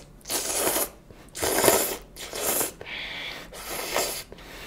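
Close-miked eating and dish-handling sounds: a run of about five short noisy bursts, each under a second, with no speech between them.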